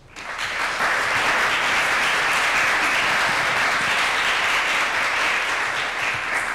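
Audience applauding, many hands clapping at once. It swells over about the first second, then holds steady.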